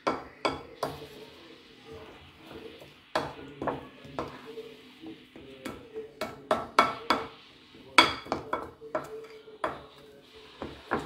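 Wooden spoon knocking and scraping against a ceramic bowl while stirring a thin creamy mixture, in an irregular run of sharp clicks and knocks, loudest about three and eight seconds in.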